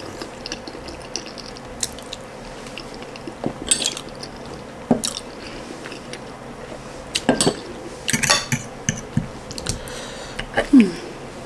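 A person eating close to the microphone: chewing, with short wet mouth clicks and smacks at irregular intervals.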